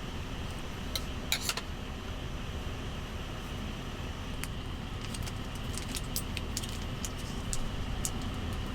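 Steady low rumble with scattered sharp clicks and small clinks: a few about a second in, more frequent in the second half.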